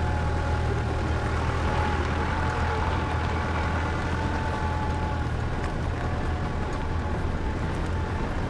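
A 4x4's engine and drivetrain running steadily at low speed, heard as a constant low hum from inside the cab.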